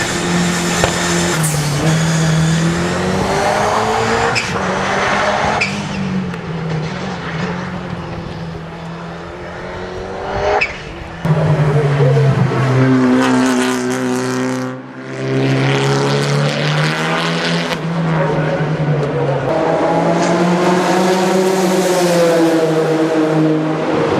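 Turbocharged racing car engines running hard in a run of short clips that cut about a third of the way in and again near the middle, the engine pitch rising and falling with the throttle.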